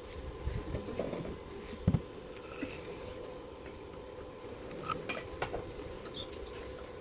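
Steady machine hum with scattered light metal clicks and clinks, and a sharp knock about two seconds in.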